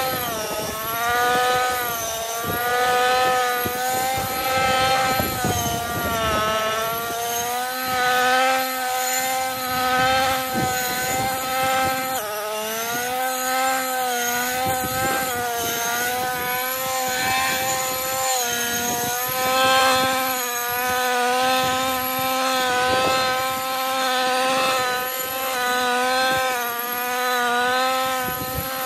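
Husqvarna 128R petrol brushcutter's small two-stroke engine running at high revs while cutting. Its pitch sags briefly under load and picks up again every few seconds, most clearly about a second in, around six seconds and around twelve seconds.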